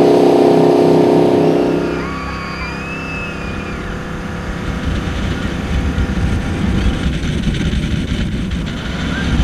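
Jet boat engine running hard at a steady high pitch. About two seconds in, this gives way to the onboard sound: wind and water rushing over the microphone, with the engine underneath.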